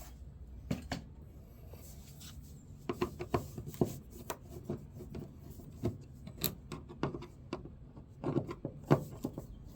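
Car side-mirror parts and their mount being handled: scattered small clicks, knocks and rubbing of hard plastic and metal, busiest a few seconds in and again near the end, over a faint steady low hum.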